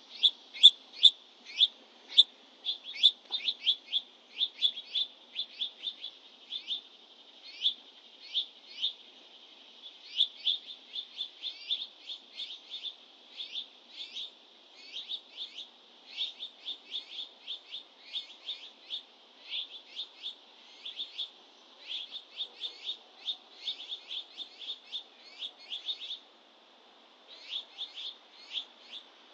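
Small songbirds chirping: a steady stream of short, high chirps, several a second, with a brief pause near the end.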